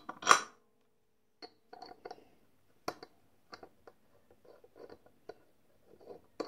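Small steel press dies clicking and clinking as they are handled and seated onto the base and ram of a hand-lever eyelet and snap-fastener press. There is one loud clink at the start, a short pause, then scattered light metal clicks.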